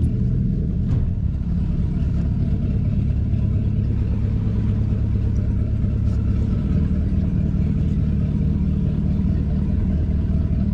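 Motorboat engine running steadily at low speed, an even low hum with no change in pitch.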